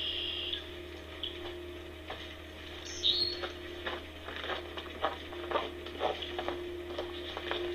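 Footsteps crunching over the ground, two to three steps a second, starting about halfway through and coming closer. A bird chirps briefly near the start and again about 3 s in, over a steady electrical hum.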